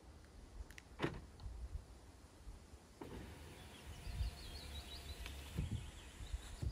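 Car's electric windows running together on comfort closing, a faint steady motor hum through the middle, with a sharp click about a second in. Birds chirp briefly in the middle.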